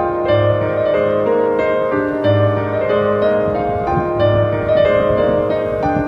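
Background piano music: sustained keyboard notes over a low bass note that returns about every two seconds.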